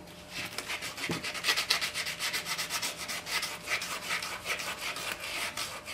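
Sandpaper rubbed by hand in quick, even back-and-forth strokes along the edge of a homemade cylinder head for a water-cooled Briggs & Stratton engine, shaping the edge.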